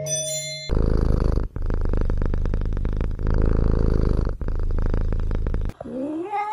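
A ginger kitten purring loudly and close, in long stretches broken by short pauses for breath. Near the end a cat gives one drawn-out meow that rises and falls in pitch. A snatch of mallet-percussion music ends in the first second.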